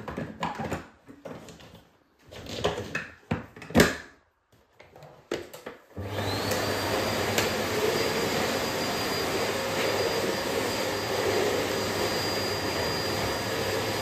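Plastic clicks and knocks as the clear dust container of a Bosch BGS21X320 bagless vacuum cleaner is fitted back in place, the loudest a sharp click about four seconds in. About six seconds in the vacuum cleaner switches on suddenly and runs steadily, with a whine that rises as the motor spins up and then holds.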